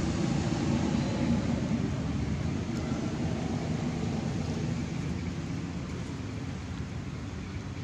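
Steady low rumble of outdoor background noise, easing off slightly toward the end.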